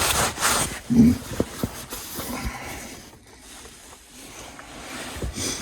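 Rustling and scattered light knocks and clicks of someone moving about inside a car's cabin, with a brief low vocal sound, like a grunt or breath, about a second in.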